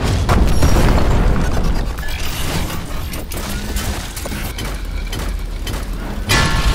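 Sound-effect mix of heavy booming impacts and mechanical clanking for fighting robots, with a loud hit at the start and another near the end, over background music.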